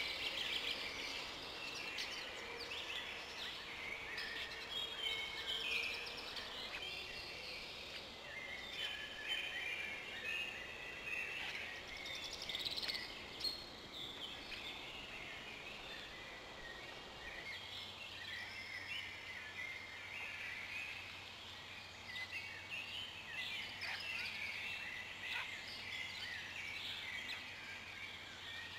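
Several forest songbirds singing at once, a dense mix of overlapping chirps and short phrases. A faint steady low hum comes in partway through.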